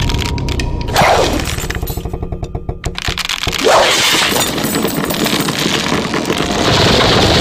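Animated sound effects of a body being dragged over rough ground and tumbling: continuous scraping with two sudden crashes, about a second in and near four seconds.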